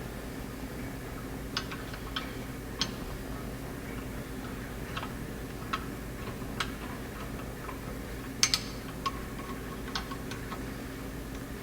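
Scattered light clicks and taps of small metal parts and a hand tool during carburetor reassembly, the loudest a quick double click about eight and a half seconds in, over a steady low hum.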